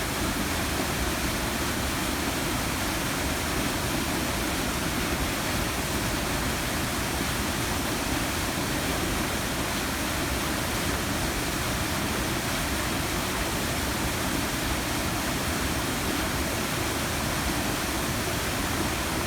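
River waterfall pouring steadily: a continuous, even rush of falling water.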